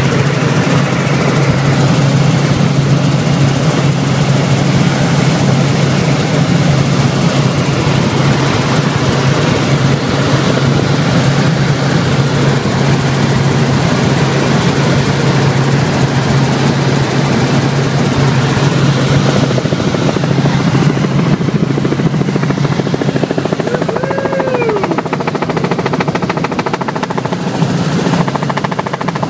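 Light helicopter's engine and rotor heard from inside the cabin in flight: a loud, steady drone that thins about two-thirds of the way through. A short falling whistle-like tone sounds near the end.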